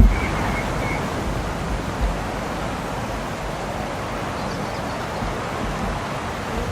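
Strong wind blowing across the microphone: a steady rushing noise with low rumbling buffets, the heaviest gust thumping right at the start.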